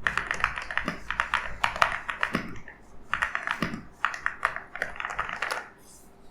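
Fast typing on an EWEADN V82 transparent mechanical keyboard: quick runs of clicky keystrokes with an occasional deeper stroke, broken by a brief pause, stopping near the end.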